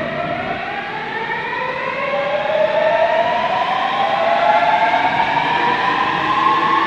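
Korail Class 351000 electric multiple unit (car 351001) accelerating: its VVVF inverter and traction motors give several whining tones that climb steadily in pitch, growing louder about two and a half seconds in.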